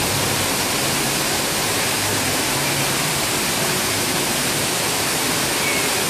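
Steady, even rushing of a large indoor water fountain, with the tail of the show music dying away in the first couple of seconds.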